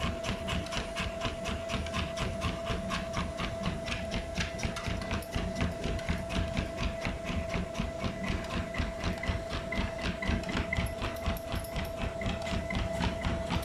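Treadmill running with a steady motor whine, under a quick, even patter of a pit bull's paws on the moving belt as it trots, with the dog panting.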